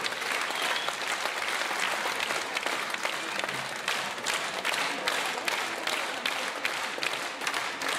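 A concert hall audience applauding steadily, many hands clapping at once.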